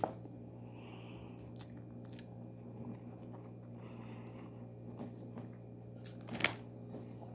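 A person chewing a hand-eaten mouthful of rice with cucumber and yogurt, faint mouth sounds over a steady low hum. A single sharp tap about six and a half seconds in.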